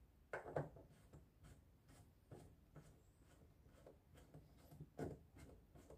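Near silence with faint, irregular clicks and scrapes of hands handling a plastic water inlet hose and its coupling at the top of a washing machine.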